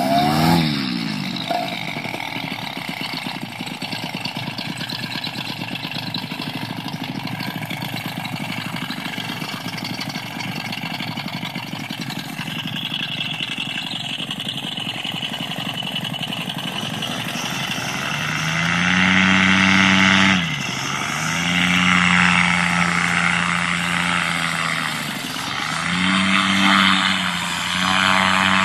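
Paramotor engine starting with a quick rise in pitch, then idling steadily. About two-thirds of the way through it is revved up, and the pitch falls and rises again a few times as the throttle is worked for the launch run.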